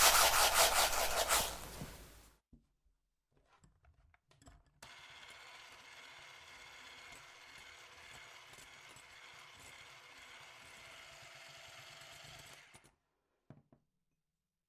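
Granulated sugar is poured into a glass bowl of egg yolks, a loud grainy rush lasting about two seconds. After a short pause with a few light clicks, a Braun electric hand mixer runs steadily for about eight seconds, beating the yolks and sugar, then switches off.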